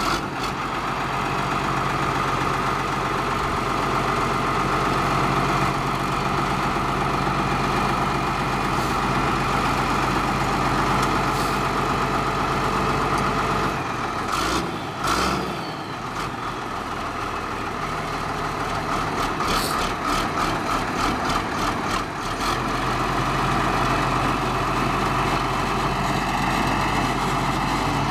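Ford TW25 tractor's six-cylinder turbo diesel running steadily at idle, with a brief change in its note about halfway through.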